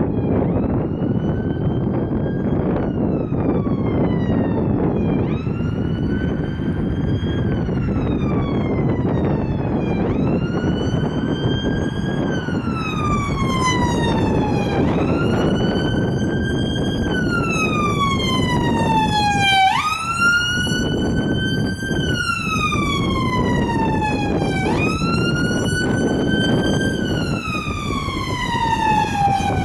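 Ambulance wail siren on a Fiat Ducato ambulance. Each cycle rises quickly, holds, then slides down, repeating about every five seconds. It grows louder as the ambulance approaches and is loudest about two-thirds of the way through as it passes.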